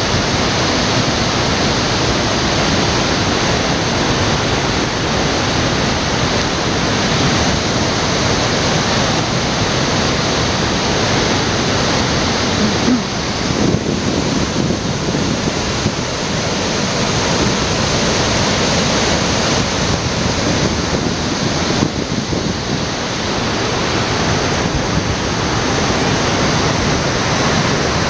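Steady rush of a waterfall: an even, loud noise of falling water that does not let up.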